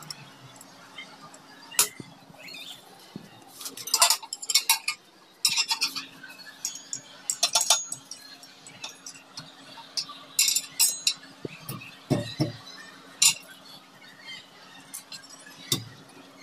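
Glass shelf clinking and knocking against metal wall brackets as it is set in place and fitted, with irregular sharp clinks and clicks, some in quick clusters.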